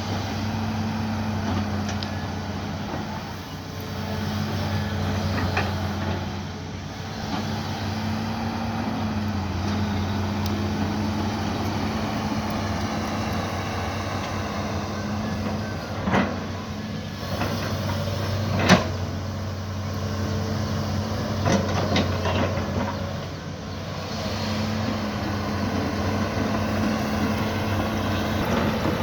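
Mini excavator's engine running at a steady hum while it digs, with a few sharp knocks midway, the loudest about two-thirds of the way through.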